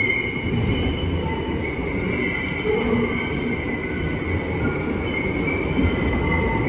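Subway train running, its wheels squealing on the rails in several steady high tones over a continuous low rumble.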